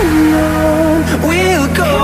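Background electronic dance-pop music: a gliding, pitch-bending lead melody over a steady bass.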